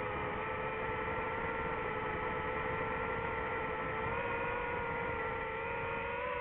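DJI FPV drone's motors and propellers whirring in flight: a steady hum of several tones that shifts slightly in pitch as the throttle changes.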